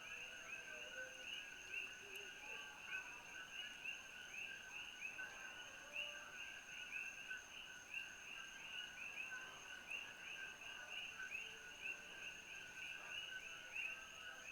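A chorus of coquí frogs calling steadily, many two-note "co-qui" calls overlapping in a continuous stream of short chirps, with a thin steady high-pitched tone behind them.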